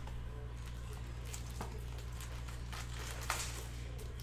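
Foil trading-card packs rustling and crinkling as they are pulled out of a freshly cut-open cardboard hobby box. There is a series of short crackles, the sharpest a little after three seconds in, over a steady low hum.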